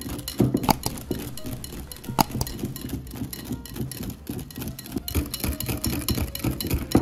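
Wire balloon whisk beating a thick cream by hand in a glass bowl: a fast, steady run of wet slaps, with the wires clicking against the glass several times a second. It stops abruptly at the end.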